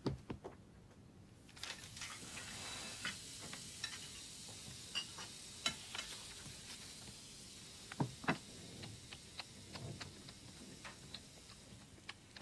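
Breakfast-table sounds: scattered light clinks of cutlery, cups and dishes over a faint steady hiss that comes in about a second and a half in.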